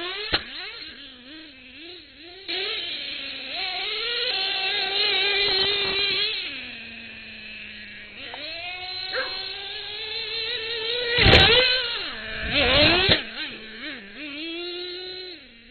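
Nitro engine of a Traxxas Revo RC monster truck revving up and down as the truck is driven, its whine rising and falling, with loud bursts of noise about eleven and thirteen seconds in.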